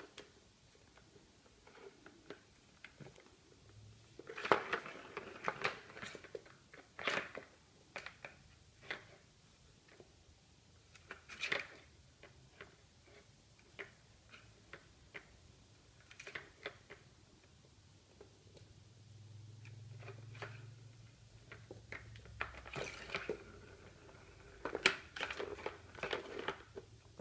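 Catit Design Senses Roller Circuit, a plastic ball-track cat toy, clicking and rattling as kittens bat at the track and the ball inside it. Light knocks come scattered, in bunches of quick taps, with the busiest stretch near the end.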